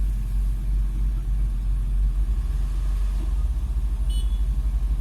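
Heavy diesel engines of a dump truck and an excavator running, a steady low rumble that settles into a fast, even throb in the second half. A brief high squeak about four seconds in.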